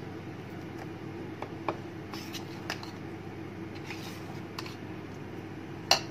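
A steel spoon stirring thin dosa batter in a steel bowl, with scattered light clicks of the spoon against the bowl, the sharpest near the end, over a steady low hum.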